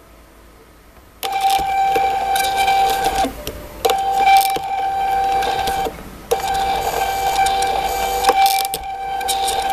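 Extruder stepper motor of a RepRap Prusa Mendel 3D printer whining with a steady tone as it feeds filament through the nozzle. It starts about a second in and runs in three stretches, with two short pauses between them.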